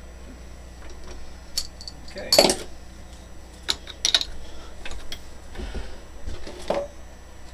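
Sharp metallic clicks and clinks from a tap and its holder being worked into a brass part held in a metal lathe's chuck, the loudest about two and a half seconds in, over a low steady hum.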